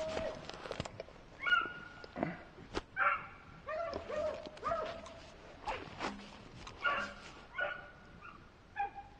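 Hunting dogs barking and yipping, about a dozen short pitched calls at uneven intervals, some dropping in pitch. They sound faint next to the voices before and after.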